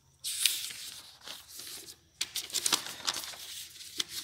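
Paper rustling and crinkling as a notebook page is handled and turned over, in two stretches with a few sharp crackles.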